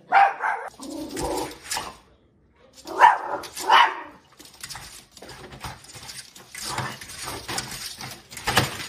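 Small dog barking at a door's mail slot: one bark right at the start and two more about three seconds in. After that comes a steady rustling with clicks as paper is pushed through the mail slot, with one louder click near the end.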